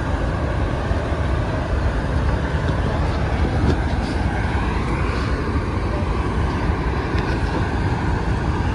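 Steady roar of the American Falls at Niagara, a large volume of water pouring over the brink close by.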